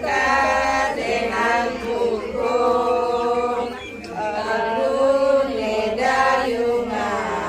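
Slow ritual chanting at a Balinese Hindu ceremony, the voices holding long, slowly bending notes.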